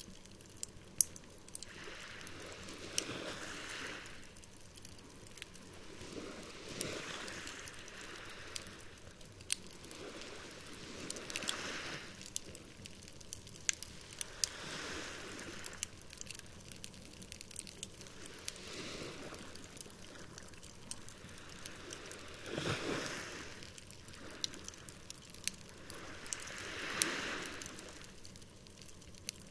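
A wood campfire crackling, with sharp pops scattered throughout, over small waves washing onto the shore about every four seconds.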